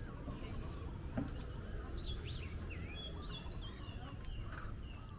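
Birds chirping and whistling, many short calls that rise and fall in pitch, with a quick run of repeated notes about three seconds in, over a steady low outdoor rumble.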